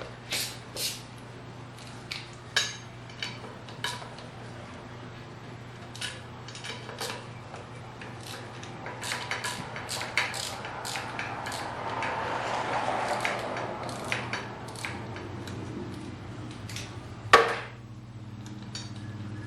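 Metal hand tools clinking and clanking against a PAX run-flat wheel while the tire pressure sensor is worked out, in scattered sharp knocks. A few seconds of rougher rubbing noise come midway, and one loud clank comes near the end.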